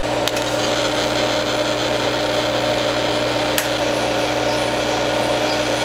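TIG welding arc from a Miller Dynasty 200 running steadily on a tank seam: a continuous buzzing hiss with a steady hum under it.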